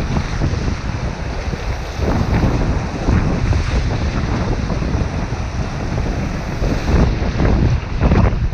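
River water rushing and splashing around an inflatable kayak, with wind buffeting a helmet-mounted microphone and irregular splashes all through.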